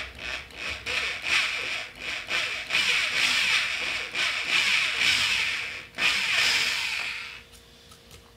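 Electric drill with a sharp 1/8-inch bit cutting slowly into the peen marks on a metal wheel-bearing retainer, throwing off chips. It runs in short stop-start bursts at first, then steadily for several seconds, and stops near the end.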